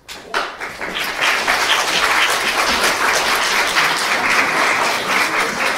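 Audience applauding, many hands clapping in a dense steady patter that starts a moment in.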